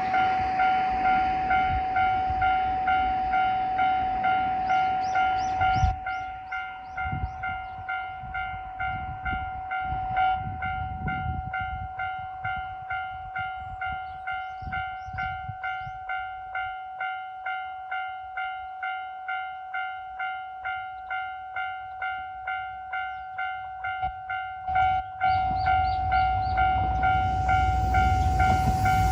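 Japanese railway level-crossing warning bell ringing in a steady, even rhythm of about one and a half strikes a second. A low rumble under it for the first six seconds cuts off suddenly. Near the end a train's rumble grows as it approaches the crossing.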